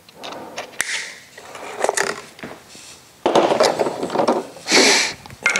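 Safety wire and pliers being handled against the steel bolt heads of a Model T clutch assembly. Scattered sharp clicks and scrapes come first, then louder rubbing and rustling over the last couple of seconds.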